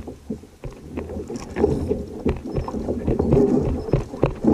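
Water sloshing and slapping against a fishing kayak's hull, with scattered knocks and clicks.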